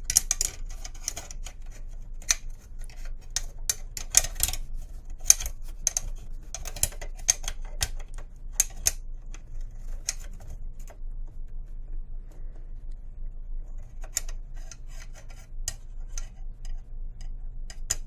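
Irregular light metal clicks and taps as a hemostat holding a small bolt is worked inside an aluminium rifle handguard, trying to start the bolt of a rail section. The clicks come thick for the first ten seconds or so, then thin out.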